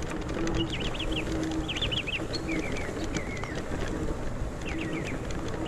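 Small birds chirping in quick repeated series, with a low steady hum that comes and goes underneath and faint scattered clicks.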